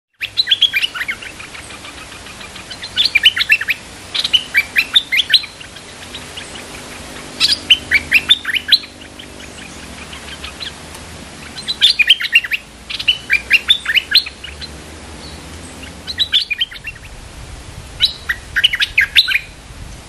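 Stripe-throated bulbul song: short bursts of quick, bubbly chirping notes, each about a second long, repeated every few seconds.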